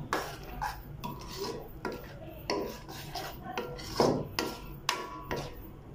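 A metal spoon scraping and stirring food in a metal pan: a run of irregular scrapes and light clinks, about two a second, some with a brief metallic ring.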